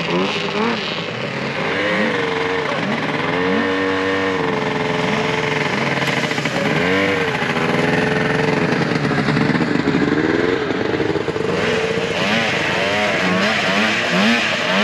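Vintage two-stroke snowmobile engines running as the sleds ride past, their pitch rising and falling again and again as the throttle is opened and eased off, with quick short rises in the last few seconds.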